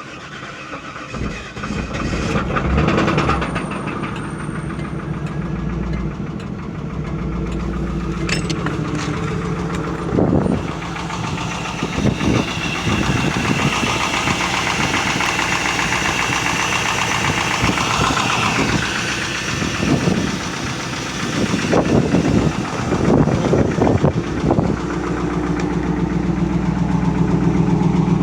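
The LS1 5.7-litre V8 of a 1998 Camaro Z28 running, with a knock that the owner takes for rod knock. It grows louder in several short surges along the way.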